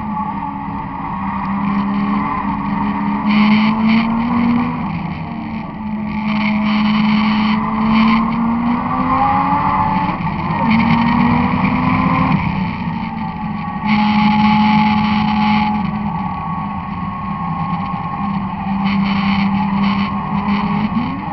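The Toyota Soarer time-attack car's 1JZ inline-six engine running hard on track. The engine note climbs and falls several times as the revs rise and drop, over a steady rush of wind and road noise at a camera mounted on the outside of the car.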